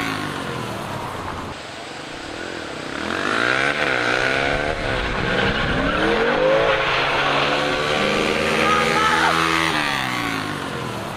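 Engines of a 2006 Ford Mustang GT's V8 and a Yamaha TT-R125 dirt bike accelerating hard in a drag race. Their pitch climbs and drops again and again as they rev and shift, and two pitches can be heard crossing.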